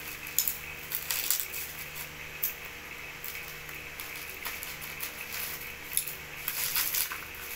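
Plastic bubble wrap being handled and cut open with scissors: scattered crisp crinkles and snips, busier near the end.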